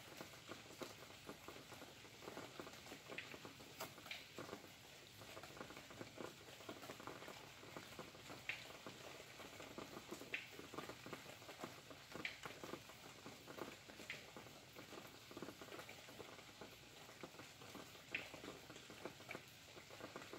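Faint rain pattering steadily, with scattered louder drops every couple of seconds.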